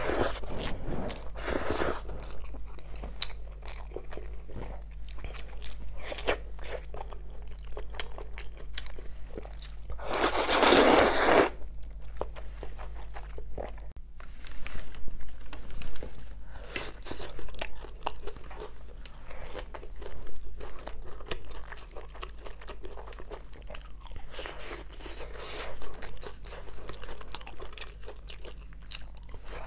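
Close-miked eating sounds: wet chewing, bites and crunching, with sharp clicks and a loud rush lasting about a second around ten seconds in. After about fourteen seconds the crunching comes from biting into sauced, crumb-coated skewered meats.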